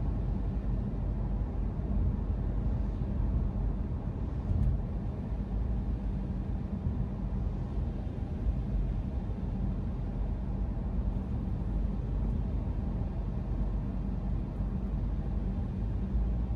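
A car being driven, with steady road and engine noise.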